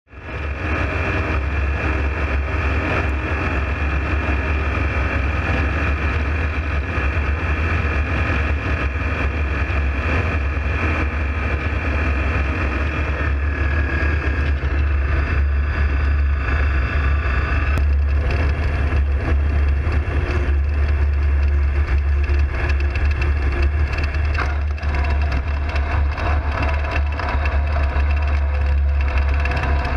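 Light aircraft's engine and propeller running steadily in flight, with a deep drone and wind rushing over the open cockpit. A higher whine in the drone shifts and drops out about halfway through.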